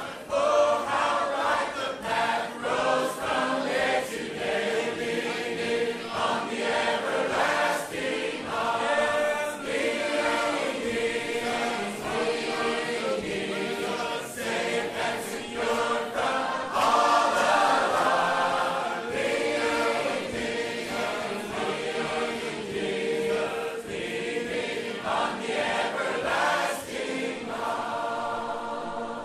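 A choir singing, many voices together in a continuous song.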